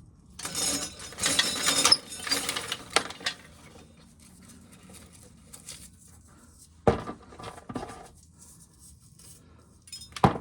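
Corn sheller stripping an ear of corn: a rattling, grinding run of a few seconds, followed by two sharp knocks, one past the middle and one near the end.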